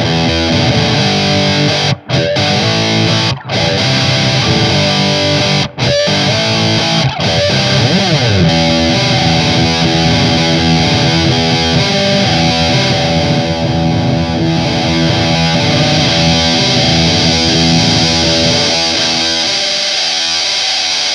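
Electric guitar with a PAF-style bridge humbucker playing a riff through a Digitech Grunge distortion pedal set for a low-gain sound. The riff stops briefly three times in the first six seconds, with sliding notes about seven seconds in.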